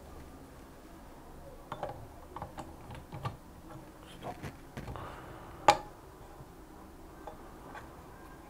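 Tools and small objects being handled on a work surface: a string of irregular light clicks and taps, with one sharp click a little past the middle.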